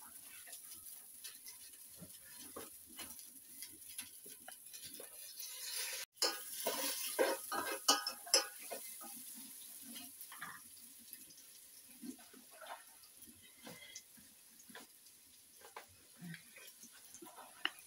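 Cooking in a metal pot over a wood fire: scattered clinks, taps and scrapes of the pot and utensil, busier for a few seconds about six seconds in.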